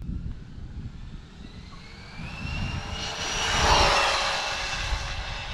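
Arrma Vendetta RC car's 2200 kV brushless motor whining on a high-speed pass. The whine climbs in pitch from about two seconds in, is loudest near four seconds as the car goes by, then drops slightly and fades. Wind rumble on the microphone underneath.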